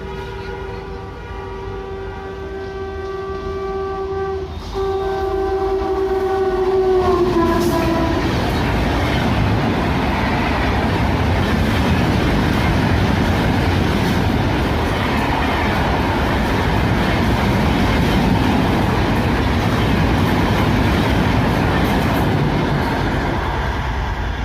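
A WAP-7 electric locomotive's horn sounds in a long held blast with one short break, its pitch dropping as it goes past. Then comes the loud, steady rumble and clatter of the express train's wheels and coaches running past, easing near the end.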